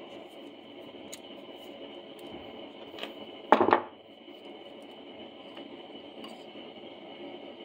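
Light clicks and clinks of a motorcycle carburetor's cast body and small metal parts being handled and taken apart, with one louder clatter about three and a half seconds in, over a steady background hiss.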